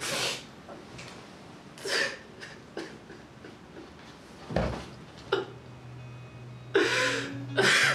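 A man sobbing and gasping in breathy bursts, the loudest two near the end.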